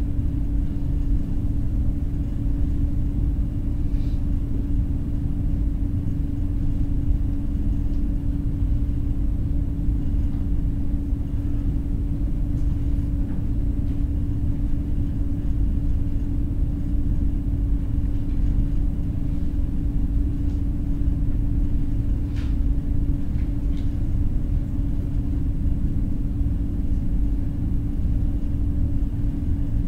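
Steady low rumble with a constant hum: classroom background noise, with a few faint clicks.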